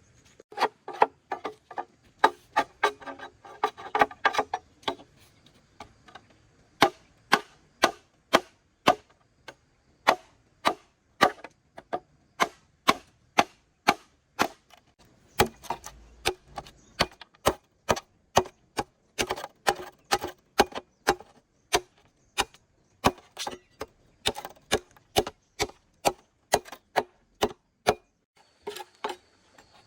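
Repeated chopping strokes of a blade into wood, sharp knocks at about two a second, with a short pause a few seconds in and another near the end.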